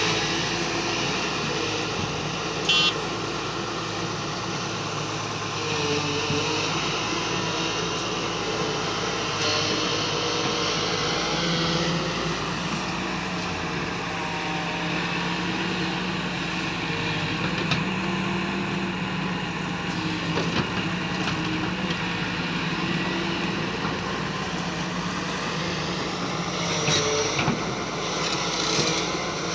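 Excavator's diesel engine running steadily, its pitch slowly rising and falling as it works. A short sharp knock about three seconds in.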